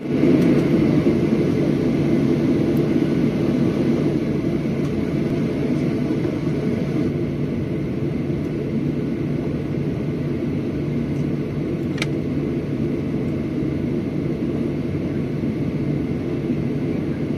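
Steady low drone of a Boeing 737-800's CFM56-7B turbofan engines at low power, heard inside the cabin beside the wing. A single brief click about twelve seconds in.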